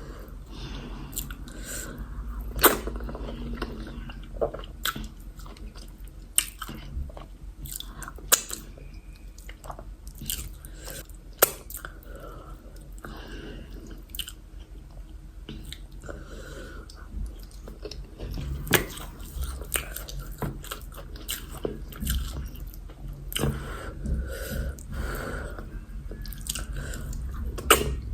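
Close-miked chewing and biting of yam fufu with egusi soup, with irregular sharp wet clicks and smacks of the mouth.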